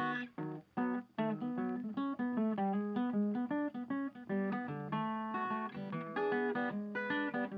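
Background music played on acoustic guitar, a quick run of plucked notes.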